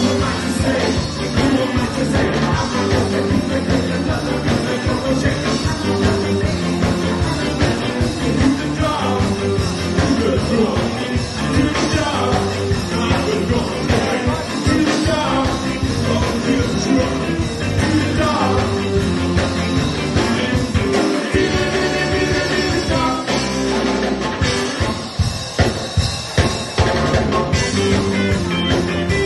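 Live ska band playing with singing over electric guitars, keyboard and a drum kit at a steady, driving beat.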